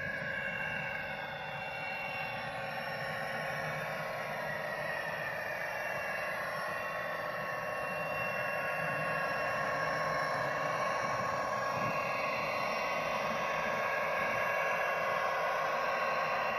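DCC sound decoder in a model Network Rail Class 57 diesel locomotive, playing the recorded sound of its EMD two-stroke diesel engine running steadily as the loco moves slowly. The sound grows a little louder towards the end.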